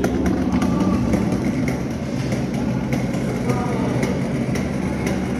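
Hard wheels of a loaded, carpet-topped flat dolly cart rolling over a hard corridor floor: a steady rumble with light clicks scattered through it.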